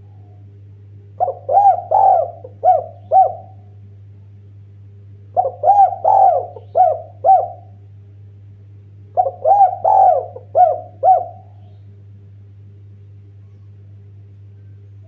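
Spotted dove cooing: three song phrases of about five quick rhythmic coos each, spaced a few seconds apart, over a steady low hum.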